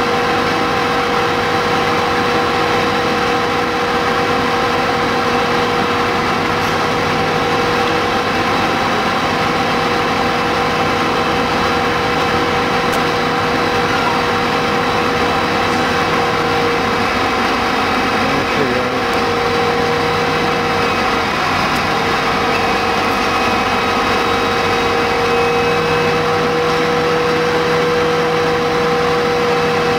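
Aerial ladder platform fire appliance's engine running steadily, a continuous drone with a strong hum. Its pitch wavers briefly about two-thirds of the way through.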